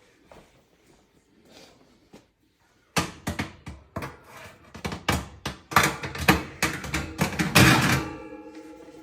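Metal oven parts being fitted back into a gas range's oven: after a few faint clicks, a quick run of loud clanks and knocks for about five seconds, ending with the metal ringing as it settles.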